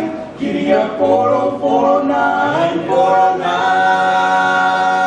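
Male a cappella vocal group singing in close harmony, voices moving together and then holding one long chord through the second half.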